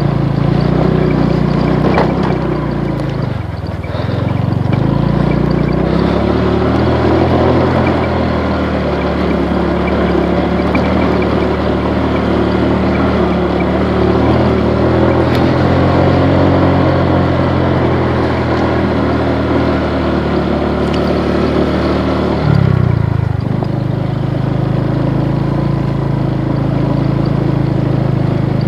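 Motorcycle engine running under way. Its pitch dips about four seconds in and picks up again, then changes once more near the end.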